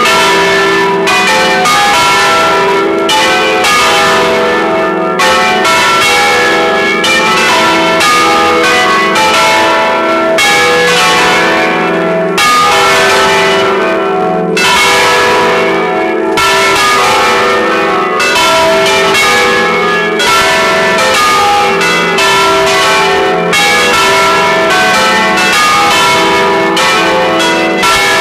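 Church bells of the Brescello bell tower ringing loud and close, a dense run of overlapping strokes, several a second, with the bells' tones ringing on between strikes.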